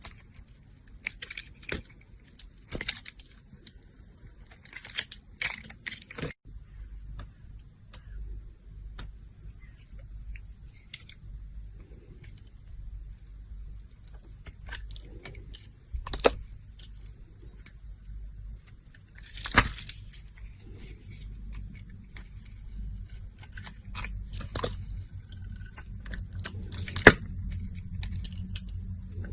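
Dry soap being cut and scraped with a knife: scattered crisp, crunchy scrapes and sharp clicks, over a low steady hum that starts a few seconds in.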